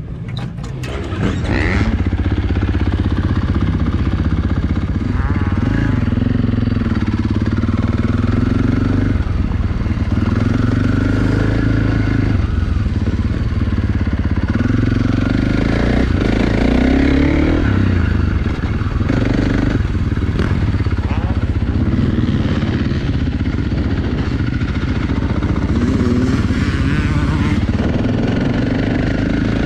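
2023 KTM 450 SX-F single-cylinder four-stroke motocross engine running hard, its pitch rising and falling over and over as the rider revs, shifts and rolls off around the track. It gets louder about two seconds in.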